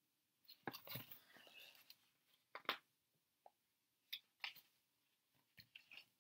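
Faint rustles and taps of a hardcover picture book being handled as a page is turned, a few short soft clicks spread over a near-silent room.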